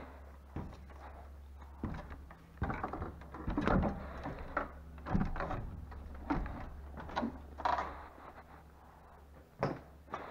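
Irregular knocks, thuds and creaks of feet and hands on a wooden ladder while climbing down from a hayloft, over a steady low hum.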